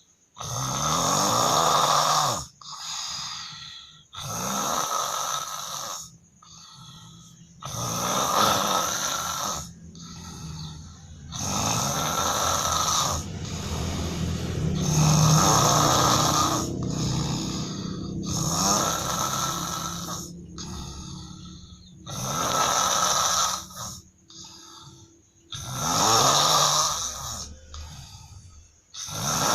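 A man snoring heavily in his sleep, loud enough that the snores are likened to a lion's roar. Loud snores come every two to four seconds with short pauses for breath between them, and one longer, drawn-out snore comes in the middle.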